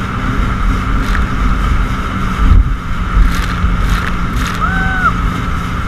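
Yamaha WaveRunner personal watercraft running steadily at speed over choppy water, its engine a constant hum under wind buffeting and water noise on the microphone.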